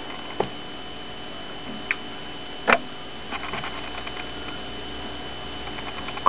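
Small clicks and taps from handling an iPod Touch: a few separate sharp taps, the loudest about midway, then a run of faint quick ticks, over a steady low hum.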